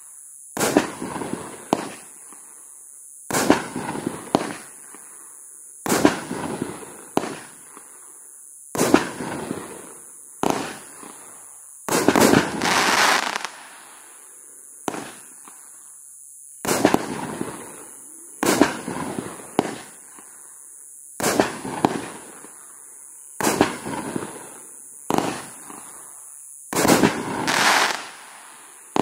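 An 18-shot, 500-gram consumer fireworks cake ('In God We Trust') firing its shots one after another, roughly one every one to two seconds. Each shot is a sharp bang that trails off in a fading crackle of glittering stars, and the bangs are loudest and closest together about twelve seconds in and again near the end.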